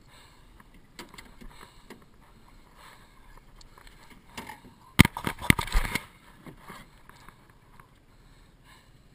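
Handling knocks in a small aluminum fishing boat: scattered light clicks, then a loud clatter of several sharp knocks lasting about a second, about halfway through.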